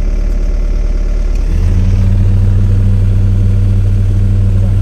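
Excavator diesel engine idling, heard from the operator's cab. About a second and a half in, a deeper steady hum comes in and the running gets louder.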